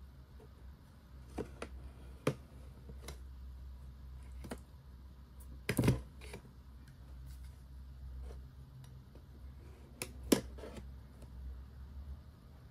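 Hands handling a cardboard toy box: scattered light taps and clicks, with a louder scraping knock about six seconds in as a snap-off utility knife blade is set to the box top to cut it open, and another sharp knock near ten seconds.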